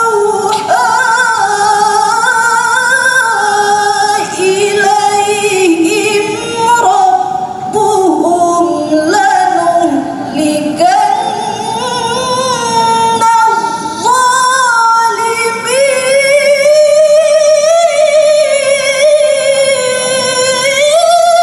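A woman reciting the Quran in the melodic tilawah style: long, ornamented phrases held on one breath, with short pauses between them. About two-thirds of the way through she climbs to a higher register and sustains it.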